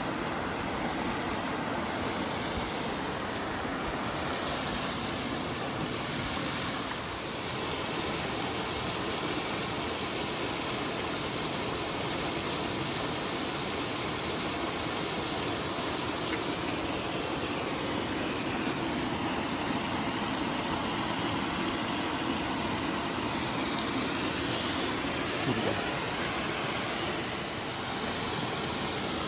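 Small waterfall pouring into a rocky pool, a steady, even rush of falling and splashing water.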